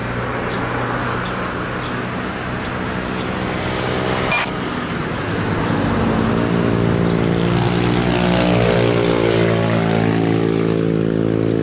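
Embraer Legacy business jet's twin turbofan engines whining at low taxi power. The whine holds several steady tones, then shifts in pitch and grows a little louder from about halfway through.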